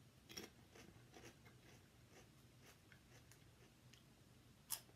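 Potato chips being chewed: faint, scattered crunches, then one sharp, louder crunch near the end as another chip is bitten.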